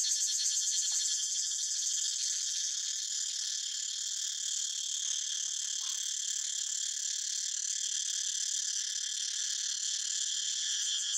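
Steady, high-pitched chorus of insects: a dense, fast-pulsing buzz.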